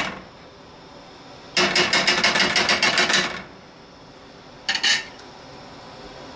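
A metal spoon scraping and clinking as butter spread is scooped into a stainless steel pan: a run of quick rasping strokes lasting nearly two seconds, starting about a second and a half in, then a brief clink near the end.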